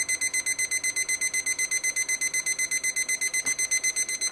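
Digital probe thermometer's alarm beeping fast and evenly, about nine high beeps a second, signalling that the water has reached its 212°F target, the boil.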